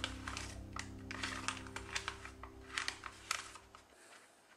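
Light, irregular clicks and ticks at a stainless steel saucepan of juice while kanten powder is spooned in, several a second, over faint background music that stops near the end.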